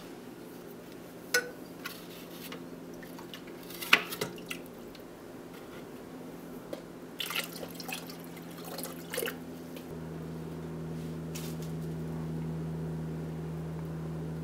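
Liquid dripping and splashing, with a few sharp clinks, as a knife blade fresh from a ferric chloride etch is dipped in and handled in neutralizing solution. A steady low hum comes in about two-thirds of the way through.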